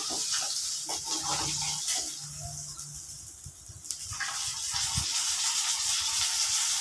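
Rohu fish pieces sizzling in hot oil in a karahi, with a metal spatula scraping and knocking against the pan as the pieces are turned and lifted. The sizzle eases for a moment around the middle, then picks up again.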